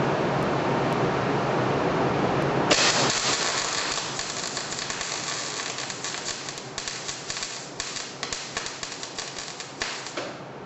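A steady machine noise, then about three seconds in a MIG welding arc with shielding gas strikes, hissing and crackling for about seven seconds before stopping shortly before the end.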